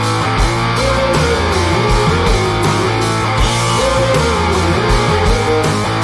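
Background rock music with electric guitar and a steady beat.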